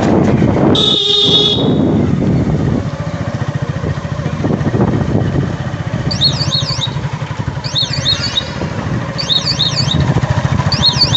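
Motorcycle engine running steadily, with a short horn blast about a second in. From about six seconds in, a turn-indicator buzzer chirps in a repeating warble four times, about every second and a half.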